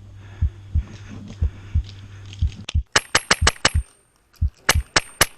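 Low thuds in a steady walking rhythm of footsteps as the player moves up. From about three seconds in, an HPA airsoft rifle (SAI GRY on a Polarstar Jack engine) fires two quick strings of sharp cracks, about five or six shots each, with a short pause between.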